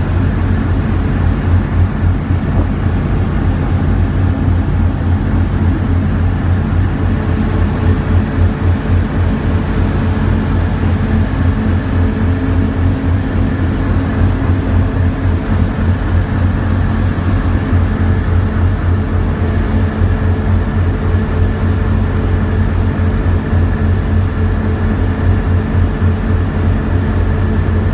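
A 4200 HP tugboat's diesel engines running steadily under towing load: a loud, constant low drone with a steady hum over it.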